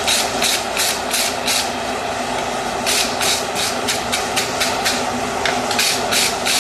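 A blacksmith's hammer striking hot steel on an anvil in quick runs of blows, about three a second, working a toe bar onto a horseshoe; the blows pause for about a second near two seconds in, then resume. A steady drone of the forge runs underneath.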